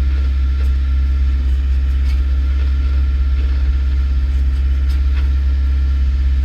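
A 1989 Nissan Sentra's four-cylinder engine idling with a steady low hum, with a couple of faint clicks.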